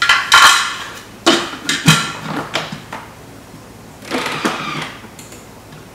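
Thermomix lid being set on the mixing bowl and pressed down into place: a few sharp plastic-and-metal knocks and clatters, then a short scrape about four seconds in. No motor is running yet.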